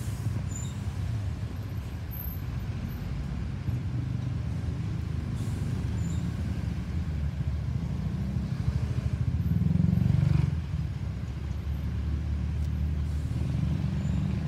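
Low, steady rumble of a Lockheed C-130 Hercules transport's four turboprop engines heard from a distance as the aircraft climbs out, swelling briefly about ten seconds in.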